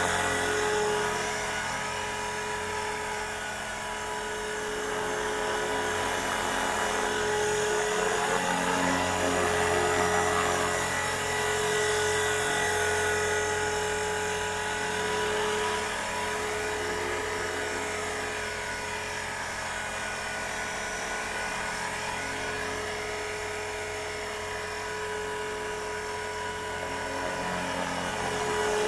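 ALZRC X360 electric RC helicopter in flight: a steady high whine from the motor and gears with the rotor's hum, swelling and fading as the helicopter moves about. The main rotor gear is newly replaced and there is no chipped-gear noise.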